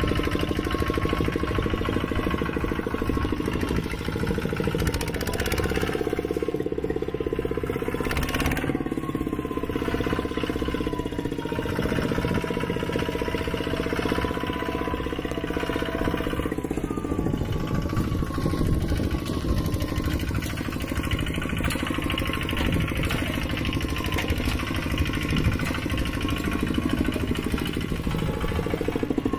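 Mini tractor engine running steadily, its pitch dipping and rising slightly now and then.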